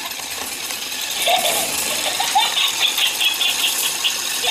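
Battery-powered rolling light-up ball toy running, its small motor whirring with a quick clicking rattle as puppies push against it, with a couple of short high squeaks.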